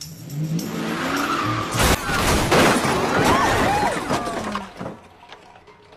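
A car's engine revving and its tyres squealing as it reverses hard, with a loud crash about two seconds in. More tyre squealing follows and dies away near the end.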